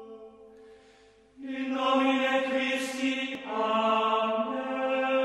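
Background music of chanted voices on long held notes. The sound dips low, then swells back in about a second and a half in.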